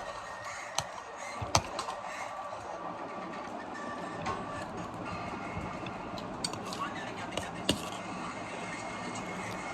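Steady background noise with faint voices talking, broken by a few short sharp clicks or knocks.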